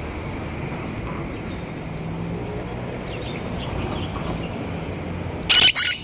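Steady street traffic rumble, then near the end a loud, short screech from a blue Quaker parrot (monk parakeet).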